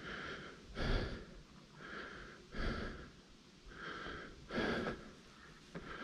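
A person breathing heavily, one loud breath about every second.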